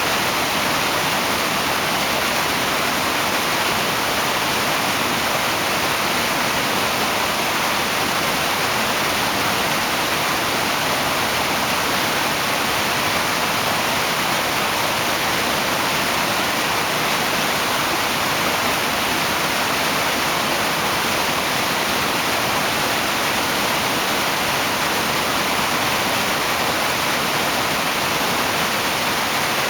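Waterfall: water rushing and splashing steadily, an even, unbroken rush with no change throughout.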